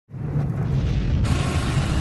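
Intro music with a deep bass, a brighter layer cutting in just past a second in.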